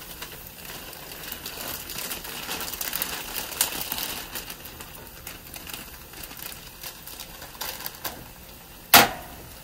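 Stir-fry vegetables sizzling and crackling in a very hot wok over a charcoal fire, with tongs scraping and a plastic bag crinkling. A single sharp knock comes near the end.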